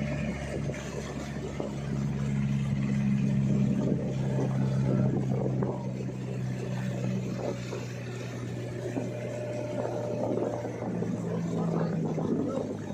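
Motorboat engine running steadily, a low hum with a rushing noise over it.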